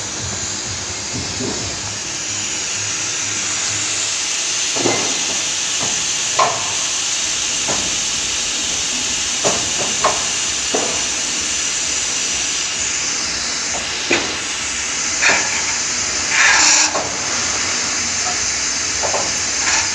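Steady hissing workshop noise, with about ten short metal knocks and clanks and a longer scrape near the end as a metal mould is handled and set into a machine's steel mould frame.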